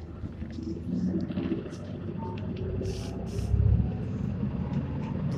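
Hino Blue Ribbon city bus (QDG-KV290N1) running, heard from inside the cabin as a steady low diesel rumble. A couple of short hisses come about three seconds in.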